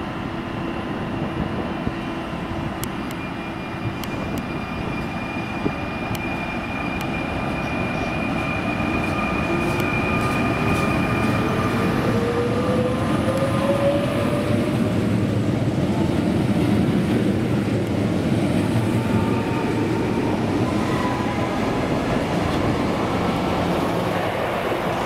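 Fertagus series 3500 double-deck electric multiple unit pulling out and accelerating past: its traction motors' whine rises steadily in pitch, and the wheel-on-rail rumble grows louder as the carriages go by.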